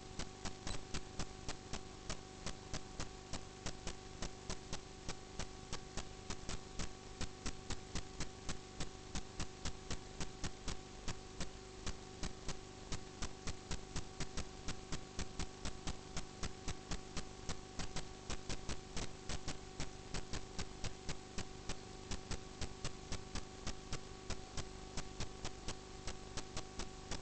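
Steady electrical hum with an even, rapid ticking, about four ticks a second.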